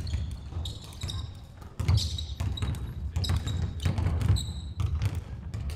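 Basketball being dribbled on a wooden sports-hall floor, with repeated thuds and players' footfalls. About once a second there are short high squeaks of trainers on the floorboards.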